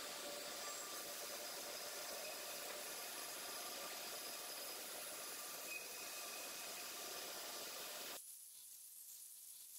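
Band saw running steadily while it trims bark from a small plum-wood cup blank, heard as a faint even hiss with a light motor hum. The sound drops away abruptly about eight seconds in.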